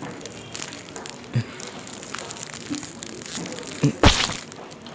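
Plastic biscuit wrapper crinkling and rustling as it is handled and opened, with one loud, short crackle about four seconds in.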